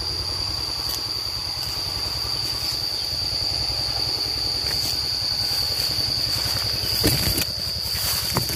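Steady high-pitched drone of cicadas over a constant low rumble, with a few short rustles near the end.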